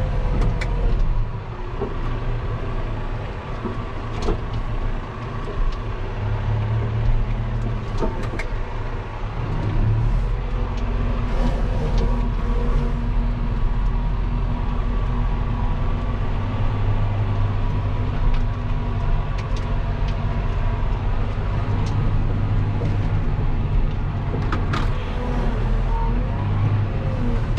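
John Deere 6140M tractor's diesel engine running steadily under load while pulling a field cultivator, heard from inside the cab, with a low hum and occasional sharp clicks and rattles.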